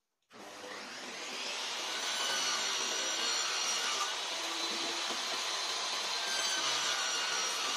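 Cordless Makita circular saw, mounted under a saw table, switched on about a third of a second in. It spins up with a rising whine over a second or two, then runs steadily at full speed.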